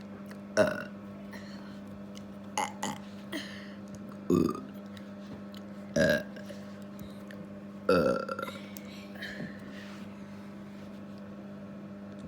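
A person burping over and over: a string of short burps about two seconds apart, four of them bigger and the rest smaller, over a steady low hum.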